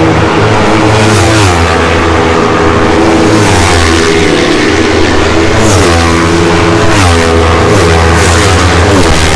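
Racing motorcycles passing at speed on a circuit's main straight, their high-revving engines loud throughout, the pitch dropping several times as bikes go by.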